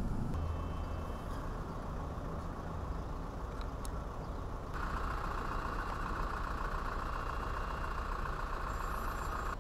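Steady low hum and rumble of the moored cruise ship Riviera's onboard machinery and ventilation, with a brighter hiss coming in about halfway through.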